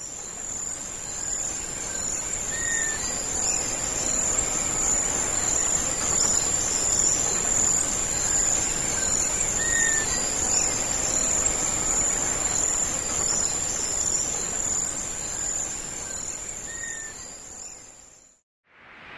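Crickets trilling in one continuous high, steady tone, with a short bird call heard three times, several seconds apart. It fades in at the start and fades out near the end.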